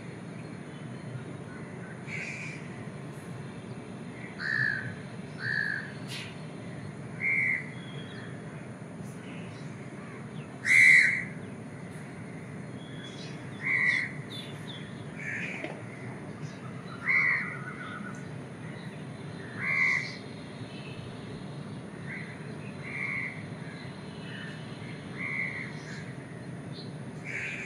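Crows cawing: single short caws every one to three seconds, about a dozen in all, the loudest about eleven seconds in, over a steady low background hum.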